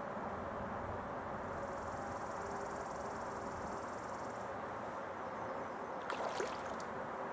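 Small stream flowing steadily. A high insect trill runs for about three seconds, starting a second and a half in, and a brief sharp noise comes about six seconds in.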